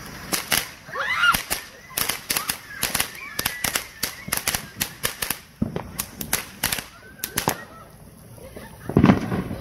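Small ground fountain firework spraying sparks, crackling with rapid, irregular sharp pops that die away after about seven seconds.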